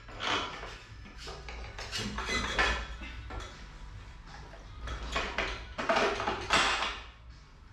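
Metal clinking, rattling and scraping of hand tools and wheel parts as a moped's front wheel axle and brake are fitted by hand, in irregular bursts, loudest about two and a half seconds in and again near the end.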